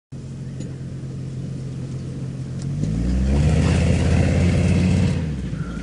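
Pickup truck engine running, then revving up hard as the truck accelerates, about two and a half seconds in. It holds high revs for a couple of seconds, then drops off in pitch and loudness near the end.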